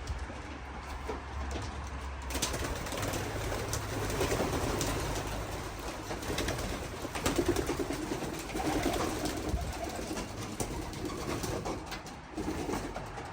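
Racing pigeons cooing, a low pulsing murmur that swells about halfway through, with scattered light clicks.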